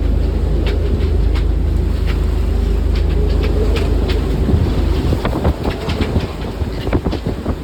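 Gale-force wind of around 45 knots buffeting the microphone on a sailing yacht as a loud, steady low rumble, with scattered sharp clicks and knocks throughout. About five seconds in, the rumble eases and uneven knocks and thumps come to the fore.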